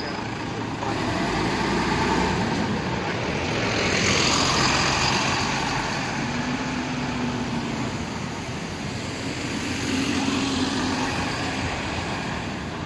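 Double-decker buses driving past close by on a city street, their engine and tyre noise swelling and fading as each one passes. The loudest swell comes around four to five seconds in, and a low engine drone rises twice later, as a Volvo double-decker pulls away.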